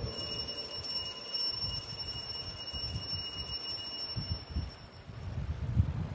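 Altar bells ringing at the elevation of the consecrated host: a bright, steady ring of several high tones that fades out about four to five seconds in.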